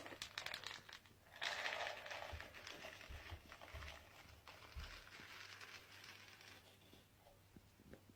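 Faint rustling and crinkling, loudest a second or two in, with a few soft knocks.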